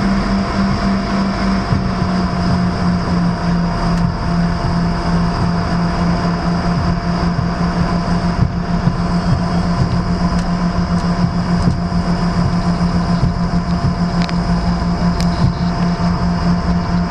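Airliner cabin noise while taxiing: the steady hum of the jet engines, with several steady tones over it, heard from inside the cabin.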